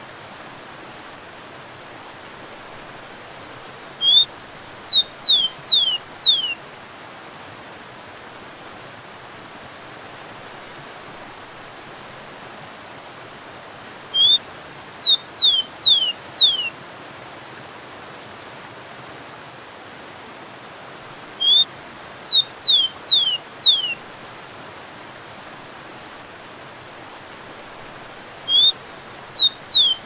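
Rufous-collared sparrow (tico-tico) singing the same short song four times, several seconds apart: a brief rising note, then four or five clear whistles that each slide sharply downward. Under it is the steady rush of a waterfall.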